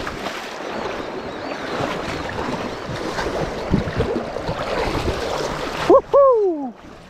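Shallow river water splashing and rushing around wading legs, heard with the action camera at and partly below the water's surface. About six seconds in the water noise drops away, and a short rising call is followed by a longer falling one.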